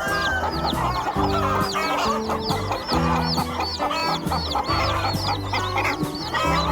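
Chickens calling, a dense run of short high peeping calls several a second, over background music with held low notes.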